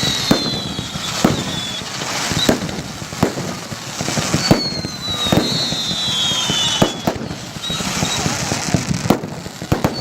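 Fireworks display: a string of sharp bangs and crackles at uneven intervals, with whistling fireworks whose pitch falls over a second or two, twice.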